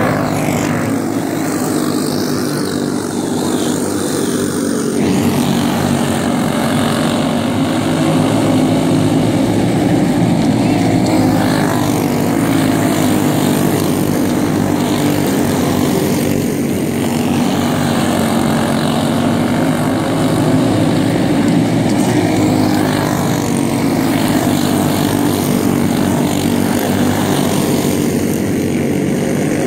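Several racing go-kart engines running hard together, a steady buzz whose pitch wavers a little as the karts go round.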